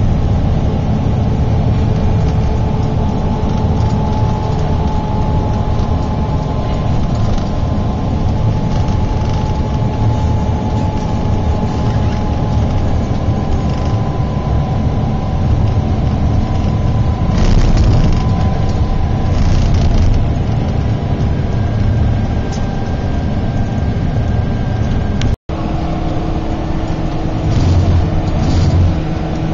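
Engine and road noise of a long-distance coach, heard from inside the cabin while it drives, steady throughout. The sound cuts out completely for an instant near the end.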